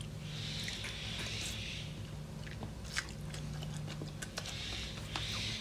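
A person chewing a mouthful of raw banana blossom salad, crisp crunching that comes in two spells, with a few light clicks in between.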